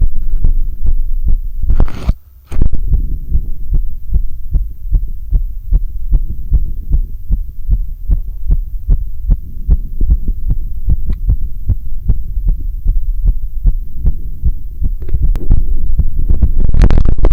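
A man's heartbeat heard through a stethoscope, the lub-dub thuds coming fast and regular: sinus tachycardia after hard rowing-ergometer exercise. A brief rustle and a short dropout come about two seconds in, and louder rubbing noise near the end.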